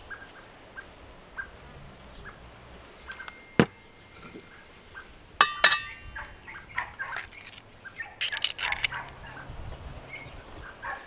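Eggs knocked against the rim of a white enamel basin: one light tap a few seconds in, then two sharp knocks that make the enamel ring, followed by a short patch of splashing as liquid goes into the basin. A bird chirps faintly and regularly in the background.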